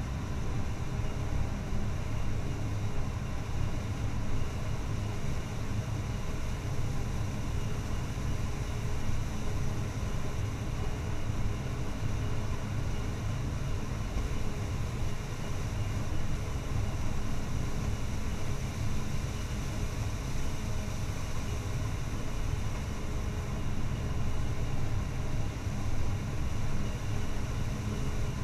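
Claas Jaguar 970 self-propelled forage harvester, MAN diesel engine, running steadily under load while cutting corn silage: a constant low drone from the engine and cutting machinery with a steady hum.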